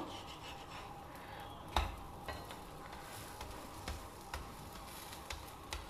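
Sandwich rotis cooking in ghee on a tawa over a low flame: a faint, steady sizzle, with a few light taps, the clearest about two seconds in.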